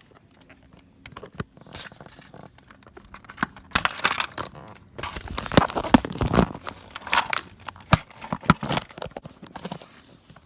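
Irregular crinkling, tearing and clicking from hands working a material over toy figures, sparse at first, then busier and louder through the middle.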